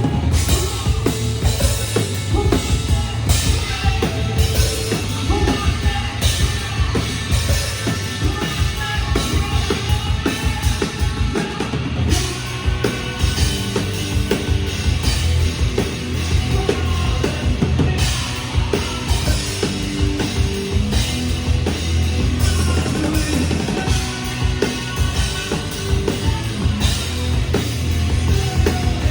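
Live hard rock band playing loudly, with driving drum kit, bass and distorted guitars.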